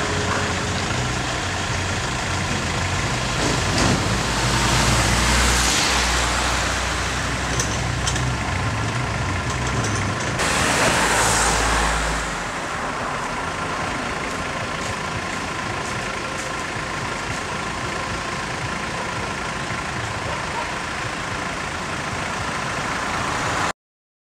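Road traffic: engine and tyre noise of vehicles on a road, swelling twice as a vehicle passes close, at about 5 and 11 seconds, then cutting off suddenly to silence near the end.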